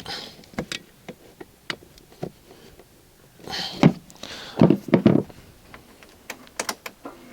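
A screwdriver tightening a scooter's loose battery terminals, with hands handling the parts: scattered small clicks and knocks, and a few louder bumps and rustles about halfway through.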